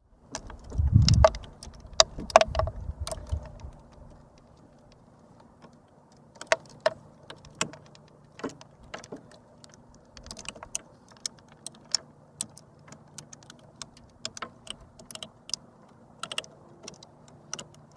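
Handling of the open electrical enclosure and its cables: scattered sharp clicks and light taps of plastic and metal, a few every second or two, with a low rumble in the first few seconds.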